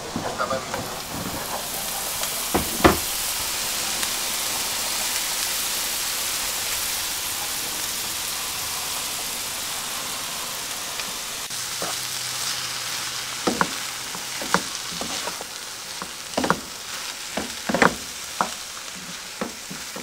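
Vegetables sizzling in a frying pan on a gas stove, a steady hiss, with a few sharp knocks and clinks, one about three seconds in and several more in the second half.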